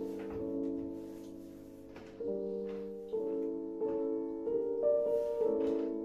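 Background piano music: slow, sustained chords, with a new chord struck every second or so.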